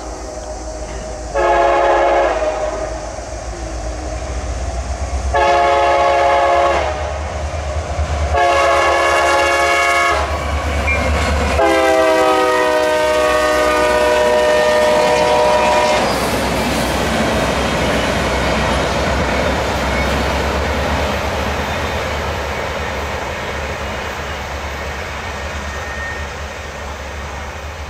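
Air horn of a CSX freight train's diesel locomotive sounding four blasts, the last one the longest and dropping in pitch as the locomotive passes. Then the freight cars roll by with wheels clattering over the rail joints, slowly fading as the train goes away.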